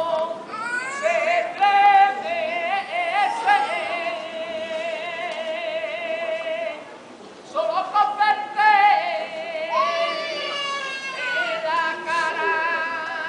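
A solo voice singing a saeta to the procession float: long, melismatic flamenco-style phrases with strong vibrato and held notes. The phrase breaks off about halfway and a new one begins.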